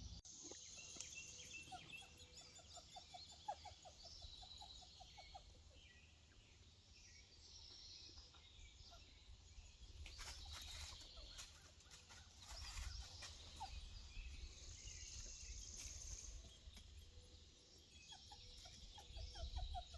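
Faint bird calls: a quick rattling series of notes twice, with thin high calls and a low rumble underneath. A few brief clicks come about halfway through.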